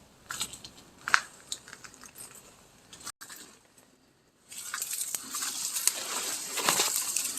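Irregular crunching and crackling of dry debris: scattered sharp cracks at first, then, after a brief dropout, a denser and louder run of crackling from about halfway through.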